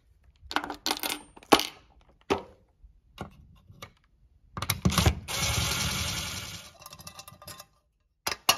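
Metal clinks and clicks from handling the screws and the pull station's metal parts, then a cordless drill running for about two seconds midway through as it drives a screw into the back box, followed by a couple more sharp clicks near the end.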